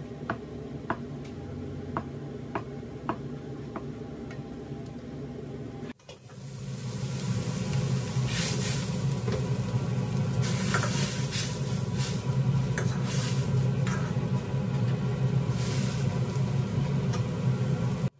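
Chinese cleaver cutting through a block of tofu, its edge tapping the plastic cutting board in a series of light clicks. After about six seconds this changes to a loud steady low burner hum with food sizzling and being stirred in a wok.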